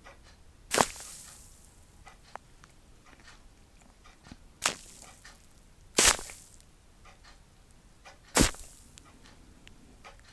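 Four sharp, sudden snapping impacts, one every one to three seconds, each with a brief hissy tail, and faint small clicks between them: an ASMR trigger object being handled close to the microphone.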